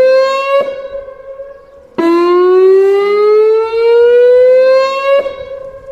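Tsunami warning siren wailing: a steady tone that climbs slowly in pitch and breaks off about half a second in, then a second, longer rising wail from about two seconds in to about five seconds, which then dies away.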